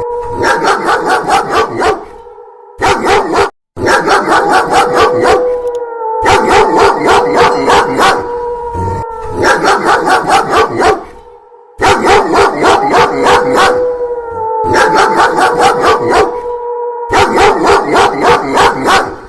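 A dog barking rapidly and repeatedly, mixed with long wolf howls that hold one pitch and slide downward at their ends. The sound breaks off for short gaps several times and starts again.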